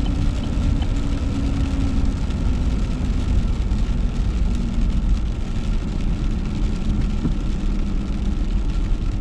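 Inside a car driving on a wet road: a steady low rumble of engine and tyres, with tyre hiss on the wet pavement and a faint steady engine hum.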